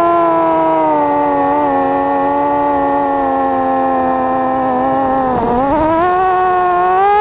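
FPV quadcopter's electric motors and propellers whining with a steady pitch that sags slowly. The pitch dips sharply about five and a half seconds in, as the throttle is cut, then rises again near the end as power comes back on.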